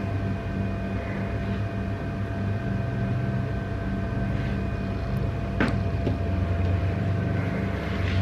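Steady low machine hum with a few fixed tones, with one sharp click about five and a half seconds in.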